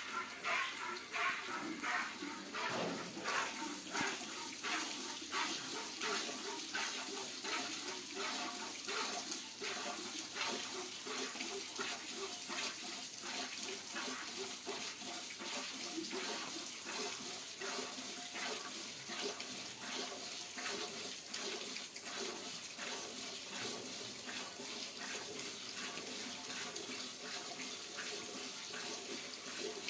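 Buffalo being hand-milked: streams of milk squirting into a pail in an even rhythm of spurts, steady throughout.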